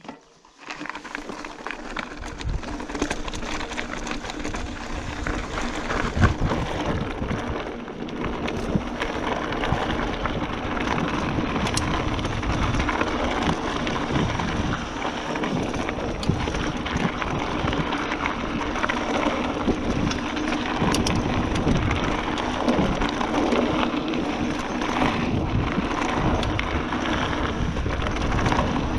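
Giant Fathom 29er hardtail mountain bike riding down a rough trail: continuous tyre rumble over the ground, with frequent rattles and knocks from the bike. It grows louder over the first several seconds as speed builds.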